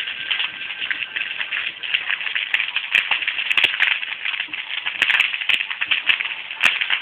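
Burning vegetation crackling steadily, with several sharp pops.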